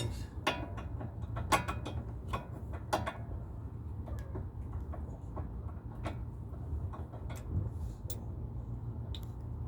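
Metal hand tools clicking and clinking against steel brake parts: a cluster of sharp clicks in the first three seconds, then scattered ones, over a steady low hum.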